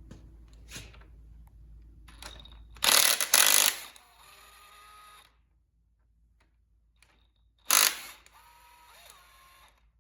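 Metal tools and engine parts being handled: small clicks and knocks, then two loud metal clanks about five seconds apart, each ringing briefly afterwards.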